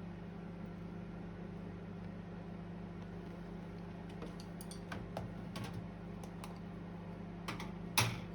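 Steady low hum with a few light clicks and taps over it, the sharpest one near the end.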